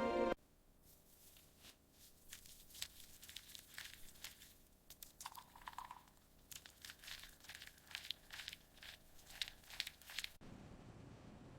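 Music cuts off just after the start. Faint, irregular crackling and crinkling clicks follow for about ten seconds, with a brief higher tone near the middle. They stop, leaving a low steady hiss.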